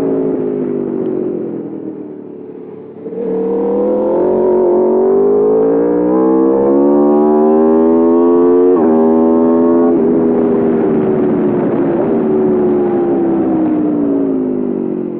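2021 Aprilia RSV4 Factory's V4 engine running hard. The revs first fall away off the throttle, then about three seconds in the throttle opens and the revs climb strongly, broken by a quick upshift a few seconds later. After that the revs ease off and fall slowly.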